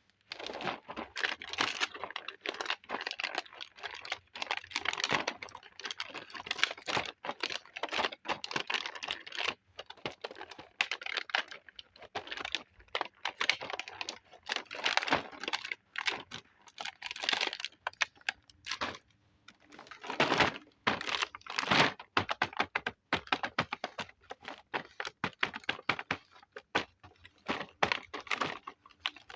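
Small plastic toy kitchen pieces being handled: rapid clicks and taps of hard plastic, mixed with crinkling of plastic packaging, in dense runs with a couple of brief pauses.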